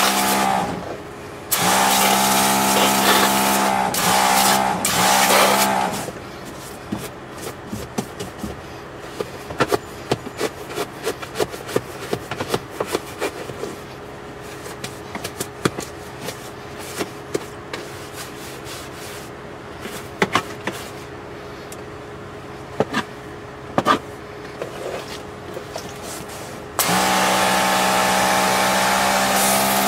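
Sisun portable 12-volt pressure washer pump running with a steady whine while it sprays water onto the truck's rubber floor mat: twice in the first six seconds and again near the end. In between, a brush scrubs and scrapes the wet mat with irregular clicks.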